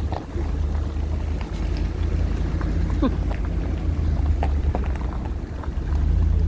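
Steady low rumble of a car driving slowly, heard from inside the cabin, with a few faint clicks and a brief squeak about three seconds in.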